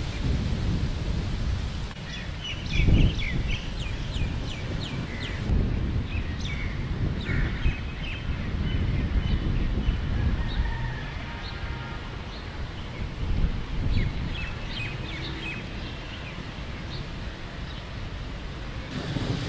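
Birds chirping in quick, short calls in two spells, over a steady low, uneven outdoor rumble.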